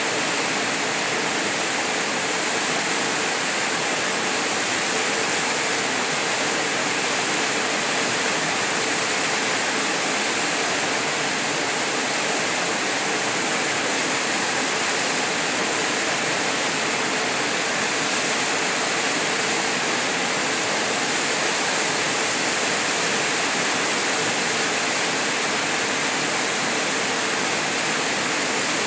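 Small waterfall pouring into a rocky plunge pool: a steady, unbroken rush of falling water.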